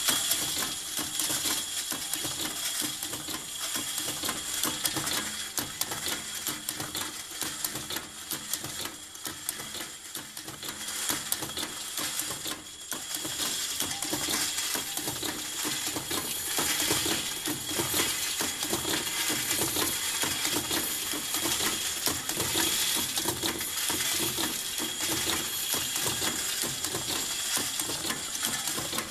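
Tridan RSL automated production machine running: a continuous, rapid clatter and clinking of metal parts and tooling, over a steady high whine and a lower mechanical hum.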